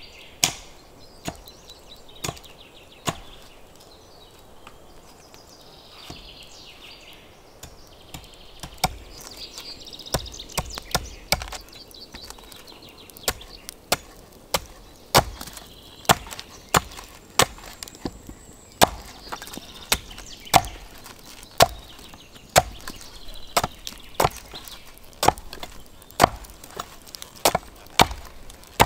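Wood being chopped: a few sharp strikes, then after a pause of several seconds a steady run of chopping at about one blow a second. Birds chirp faintly between the blows.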